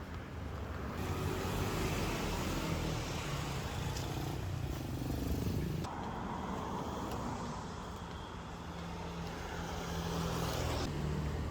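Motor-vehicle engine and road noise, a steady running sound that shifts abruptly about a second in, again near six seconds and again near the end.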